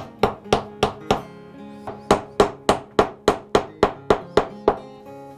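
Quick, even hammer strikes, about three a second, with a short pause about a second in, stopping near the end. Background music plays underneath.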